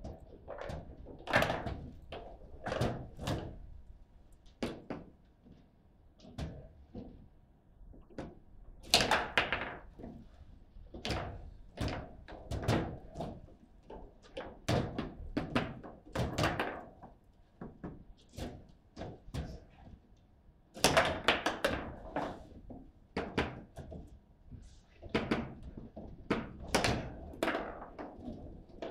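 Table football in play: irregular sharp clacks and knocks of the ball striking the plastic figures and the table walls, and of the rods being slid and spun, some in quick runs with a few louder bangs.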